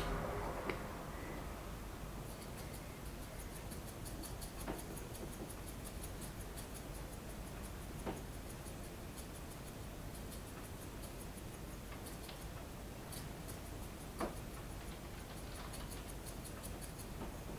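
Small plastic shaker of sprinkles being shaken over a cake: a handful of soft clicks over faint room tone, with a faint even ticking.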